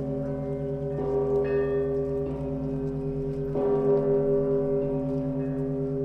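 Russian Orthodox church bells of Danilov Monastery ringing. A deep bell's hum rings on and pulses between strokes, with the bells struck again about a second in and again past halfway, and a higher bell sounding just after the first of those strokes.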